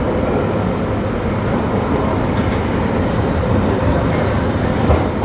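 London Underground train running, a steady loud rumble with no let-up.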